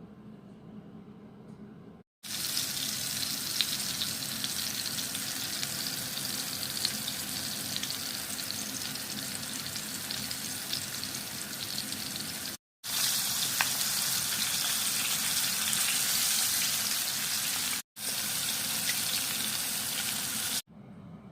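Smelt frying in hot oil in a pan: a steady sizzle thick with small crackles, starting abruptly about two seconds in and broken twice by brief dropouts. It stops suddenly near the end, leaving a quieter low hum.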